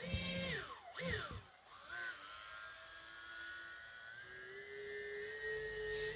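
RC boat's electric motor whining, with the pitch dropping and rising twice as the throttle is let off and reapplied, then holding steady and stepping up higher about four seconds in.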